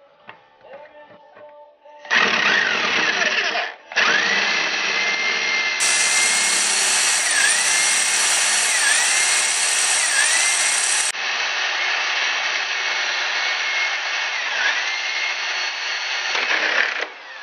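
Electric drill drilling out rusted screw heads. It makes a short run about two seconds in, then a long steady run, and its motor whine dips in pitch several times as the bit bites and loads the motor.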